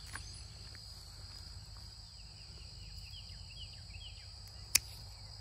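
Steady high drone of insects with a few faint short chirps, and one sharp snip of hand pruning shears cutting through a mulberry branch near the end.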